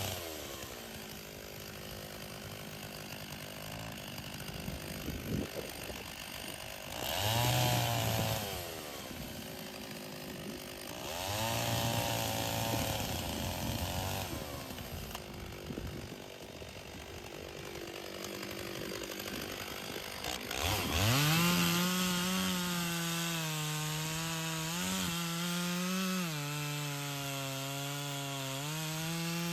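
Stihl two-stroke chainsaw idling and twice briefly revved to full throttle, then held at high revs from about two-thirds of the way in, its pitch sagging and recovering as the chain bites into a log being bucked into firewood rounds.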